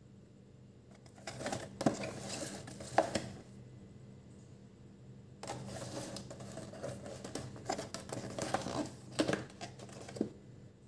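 Paperboard takeaway box being handled and its folded flaps pulled open. Two spells of rustling, scraping cardboard with a few sharp clicks and taps.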